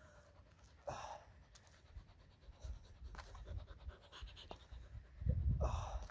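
Faint, quick dog panting, with a low rumble near the end.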